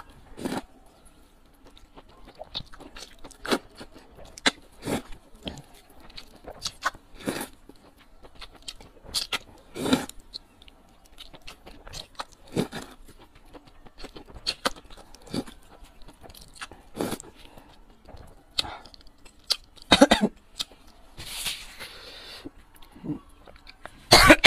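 Close-miked eating of sesame-paste glass noodles: irregular wet slurps and chewing, with a longer hissing slurp about three seconds before the end.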